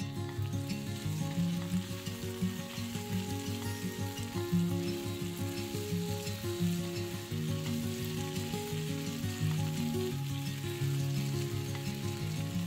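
Music with a run of short low notes, over a steady hiss.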